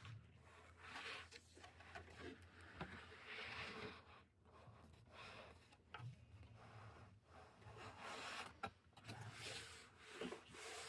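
Faint rustling and rubbing of plastic wrapping being pulled off a packaged RC car, in irregular swishes with a few small clicks.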